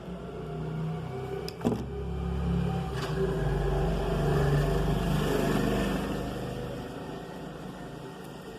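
A motor's low hum that swells over a few seconds and then fades away, with a sharp click about one and a half seconds in.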